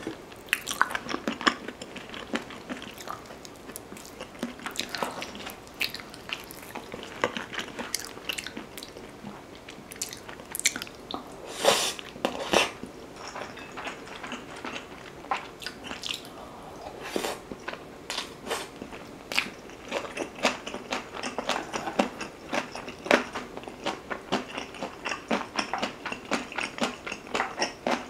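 Close-miked eating sounds: chewing and biting of beef rib meat and kimchi, with many short crunches and wet mouth clicks, a couple of louder crunches standing out partway through.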